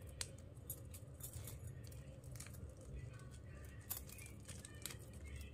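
Faint handling noise: scattered light clicks and rattles of hands working plastic wire strips into a woven plastic bag, over a low steady hum.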